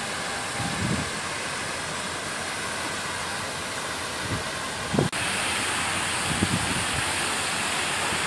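Steady rushing hiss of fountain water spray and outdoor wind, with a few low wind buffets on the microphone. The noise shifts abruptly and turns brighter about five seconds in.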